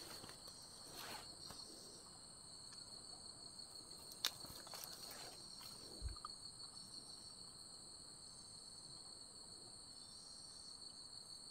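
Insects chirring steadily in a high-pitched, unbroken drone, with a sharp click about four seconds in and a soft thump about six seconds in.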